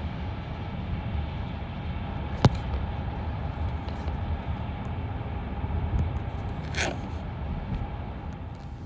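Steady low rumble of moving vehicles, with one sharp click about two and a half seconds in and a short hiss near seven seconds.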